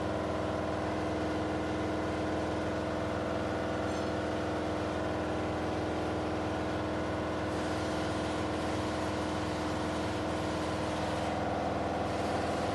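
Car engine idling steadily at an even pitch, with no clear separate knock standing out. The owner is hunting for a knocking noise in it.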